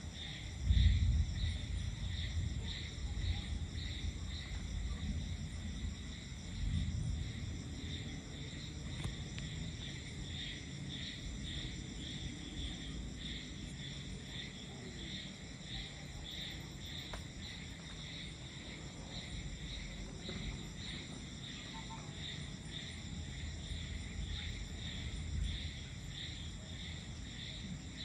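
Night insects chirring in a steady pulsing chorus, about three pulses a second. Low rumbles of distant thunder under it, the loudest about a second in and another around seven seconds in.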